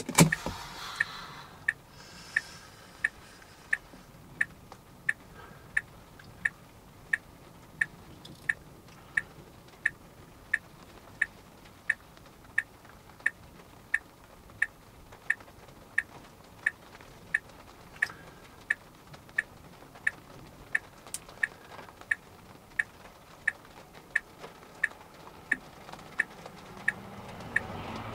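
A car's turn-signal flasher clicking steadily, about one and a half clicks a second, over faint low background noise inside the parked car.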